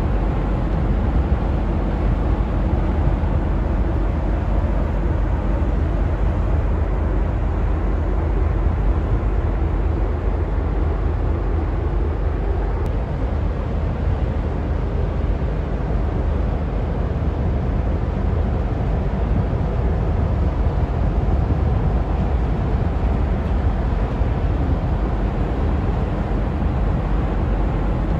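Steady low rumble of a pusher tug's diesel engines driving a loaded bulk barge slowly past, with water washing along the hull.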